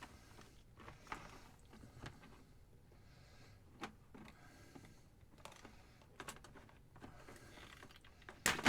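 Faint, scattered clicks and knocks of hands working a PC water-cooling radiator and its stiff, ten-year-old tubing free, with a louder knock near the end.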